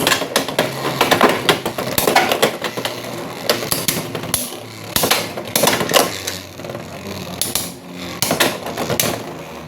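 Beyblade X spinning tops, one of them Dran Buster, battling in a plastic stadium: rapid, irregular clacks and knocks as they collide and scrape over a faint spinning hum. The hits thin out and grow quieter near the end.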